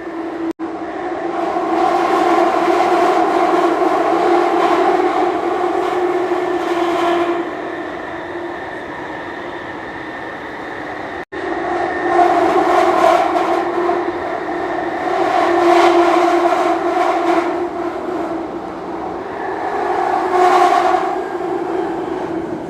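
Jubilee line underground train running between stations: a steady, tonal whine and rumble that swells and eases in waves. The sound cuts out very briefly twice, about half a second and about eleven seconds in.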